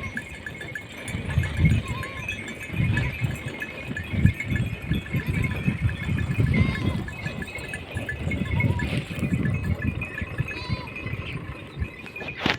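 A flock of sheep bleating, call after call overlapping throughout.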